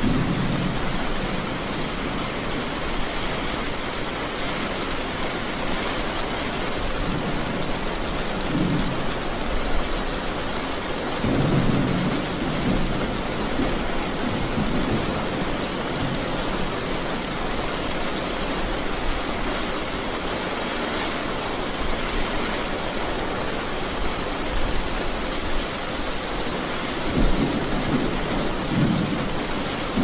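Thunderstorm: steady rain falling, with low rolls of thunder rumbling up several times, the longest about a third of the way in and two short ones near the end.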